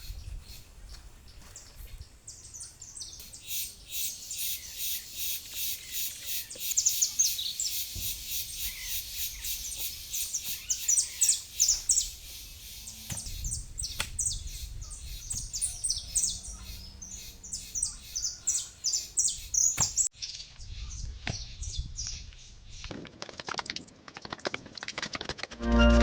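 Birds chirping in long runs of quick, high-pitched repeated notes, which thin out after about twenty seconds.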